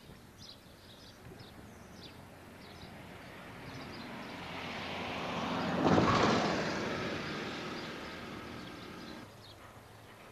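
A vehicle passing by: a rushing sound that swells over about three seconds to a loud peak roughly six seconds in, then fades away over the next three.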